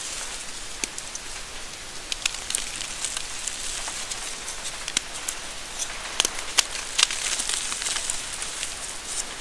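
Reformed gym chalk crumbled by hand into powder: a steady fine, crunchy hiss of dry chalk breaking and falling through the fingers, with sharp snaps as chunks break, several close together between about six and seven seconds in.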